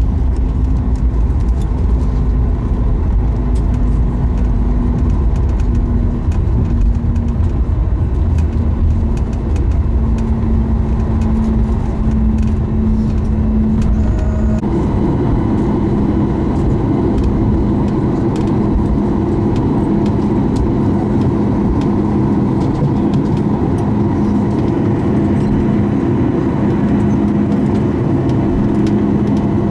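Boeing 737 MAX cabin noise from a window seat after touchdown: the CFM LEAP-1B engines and airflow make a steady roar with a held hum. About halfway through, a deep rumble drops away, leaving a steadier engine hum as the jet slows to taxi.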